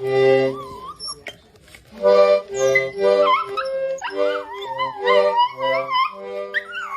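A dog howling along to instrumental music played in held chords. After a short whine early on, its wavering howl rises over the chords about three seconds in and holds to the end.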